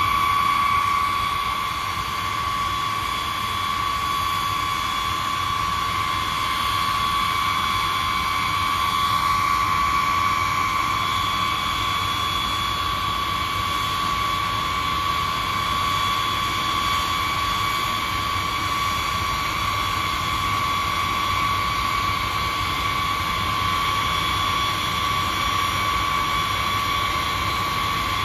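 Boeing B-52's eight Pratt & Whitney TF33 turbofan engines running at taxi power: a steady high-pitched whine over an even rush of jet noise.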